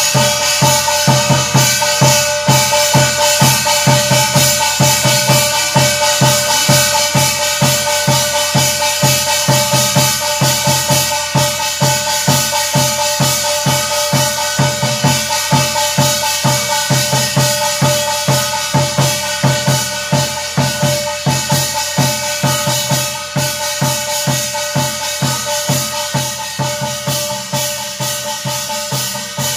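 Korean barrel drum (buk) beaten with a stick in a quick, even rhythm to accompany a shaman's scripture recitation (gyeong-ilgi), with a steady droning tone running under the beat. The beat grows gradually softer over the second half and stops at the very end.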